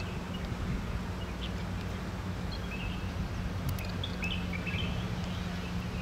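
Steady low mechanical hum with short bird chirps scattered over it, most of them in the second half.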